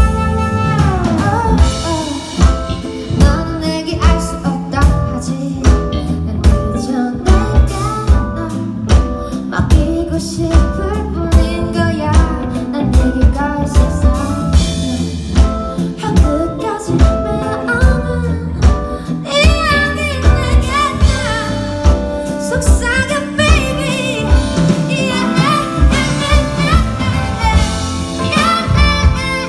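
Live band music: a drum kit keeping a steady beat under pitched instrument lines in an instrumental section of a jazzy pop song, with a wavering melodic lead coming in about two-thirds of the way through.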